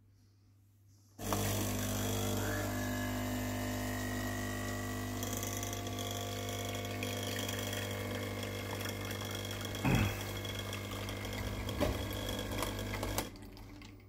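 Mini Moka espresso machine's vibration pump running, a steady buzzing hum as it pushes hot water through the coffee and espresso pours into the cup. It starts suddenly about a second in, has a couple of brief louder pulses near the end, and cuts off about a second before the end.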